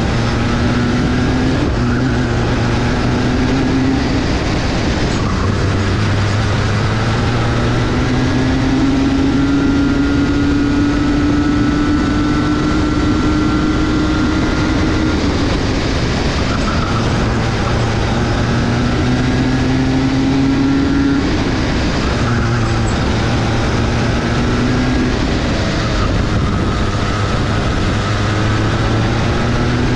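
Go-kart engine running at racing speed, its pitch climbing steadily along the straights and dropping back off-throttle for the corners, several times over, over a constant rush of wind and engine noise.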